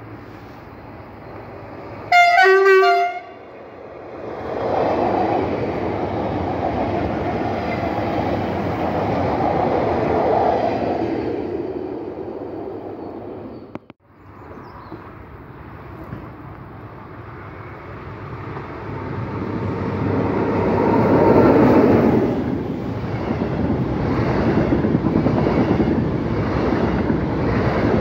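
A train sounds one horn blast, about a second long, about two seconds in. It then runs past with wheel and rail noise that swells and fades. After a brief break, a double-deck commuter train passes with wheel and rail noise that peaks a few seconds after the break and stays loud.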